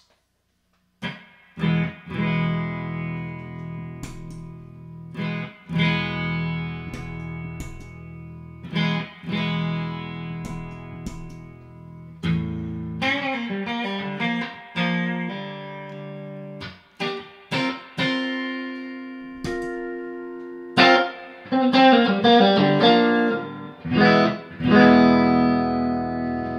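Electric guitar played through a Mosky SHO single-knob booster pedal, starting about a second in. Strummed chords ring out and are re-struck, a quicker run of single notes comes midway, then a flurry of short chord stabs and a final held chord.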